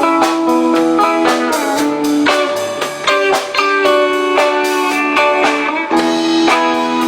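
Live band playing an instrumental passage with guitar to the fore, notes plucked and sustained in a steady rhythm.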